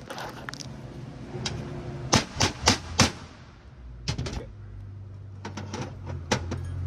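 Hammer tapping a steel pin through a punch into a short-shift plate: lighter taps, then four sharp strikes in quick succession about two seconds in, then more scattered taps. A low steady hum comes in about halfway.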